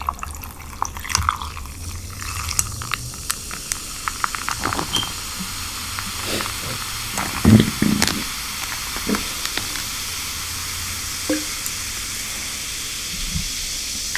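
A strawberry watermelon drink being opened and handled: a steady high hiss, with scattered small clicks and a couple of louder knocks about halfway through.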